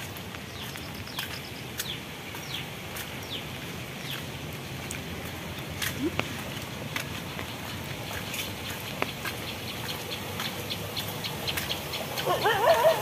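Steady rain hiss with birds calling in short, falling chirps and a quick trill in the first few seconds. Near the end, dogs start yelping and whining.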